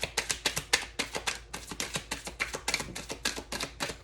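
Tarot deck being shuffled by hand: a rapid, steady run of light card clicks, several a second.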